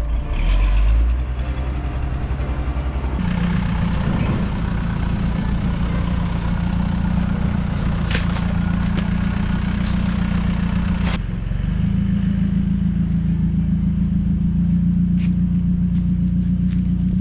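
An engine running steadily, with scattered clicks and clatter over it; the engine note drops out briefly about eleven seconds in and then resumes.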